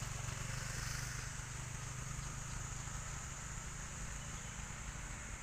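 A motor idling steadily, a low pulsing hum, with a constant high hiss above it.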